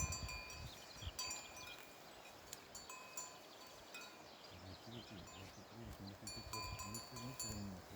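Bells worn by a herd of goats clinking faintly and irregularly as the animals move and graze.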